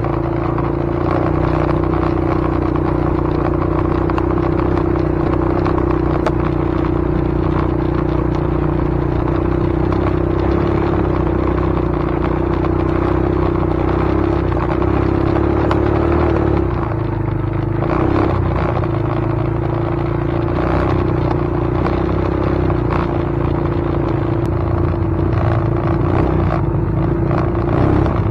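A steady machine drone holding one constant hum over a low rumble, with light clatter and scraping over it.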